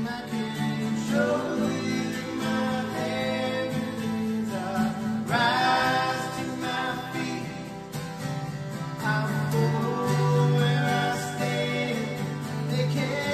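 Three acoustic guitars playing chords together while men's voices sing a song.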